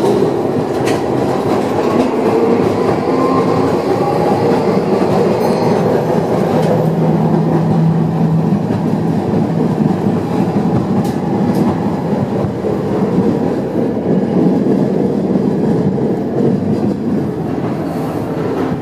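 Interior of a 1928 Milan "Peter Witt" streetcar under way: a steady, loud rumble of wheels on rails and the rattling car body, with a few sharp clicks here and there.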